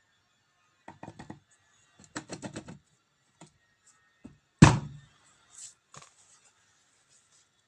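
Metal parts and tools knocked and rattled by hand on a workbench. There are two quick runs of light taps, then one heavy knock with a short ring about halfway through, and a few lighter knocks after it.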